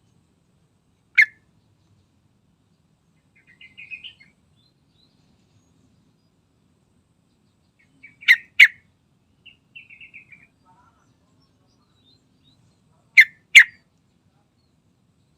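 Sooty-headed bulbul (trucukan) calling: one loud, sharp note about a second in, then two loud notes in quick succession twice, around the middle and near the end, with soft chattering phrases between them.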